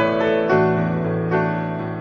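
Background piano music with notes struck every half second or so and left to ring.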